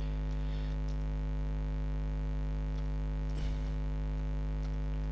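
Steady electrical mains hum with many overtones, picked up on the recording, with a few faint keyboard clicks.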